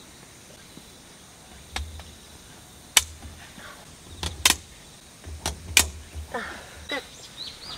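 Folding field cot being assembled: its metal leg bars snap into the frame in a series of about six sharp clicks, with dull thumps of handling.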